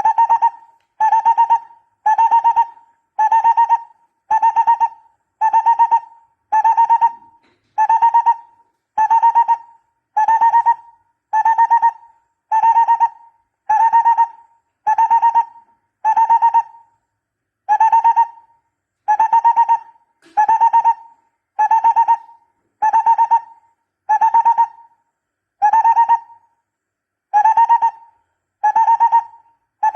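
Barbet calling: a loud, hooting note with a slightly rolled quality, repeated steadily a little faster than once a second, with one slightly longer gap about halfway through.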